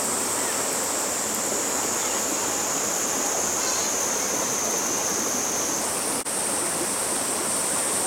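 Shallow mountain stream rushing over rocks and small cascades, a steady noise of running water. Above it runs a steady high-pitched buzz that shifts in pitch about six seconds in.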